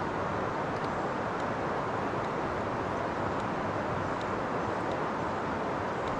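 Steady rushing of river water over rapids, an even, unbroken noise with no change in level, with a few faint ticks on top.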